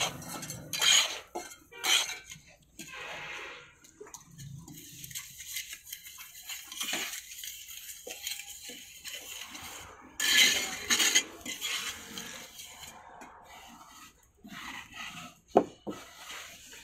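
Hand tools scraping and smoothing wet cement in a wooden mould: irregular scraping strokes, a louder run of them about ten seconds in, and a single sharp knock near the end.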